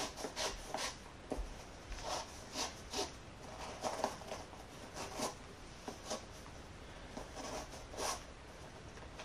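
Shoelace being pulled and slid through the eyelets of a new sneaker: short scratchy swishes at irregular intervals, one or two a second.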